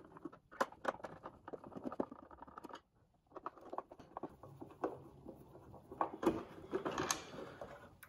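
Light clicks, taps and scratching of hands handling the plastic rear casing of a JVC RC-545L boombox as it is worked open, broken by a brief silence about three seconds in.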